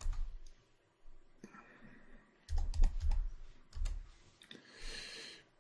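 Computer keyboard being typed on, in three short bursts of keystrokes with pauses between.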